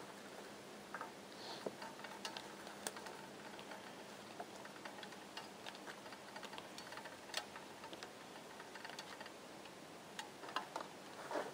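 Faint, irregular clicks and ticks spaced unevenly over a low hiss, with a short rustle near the end.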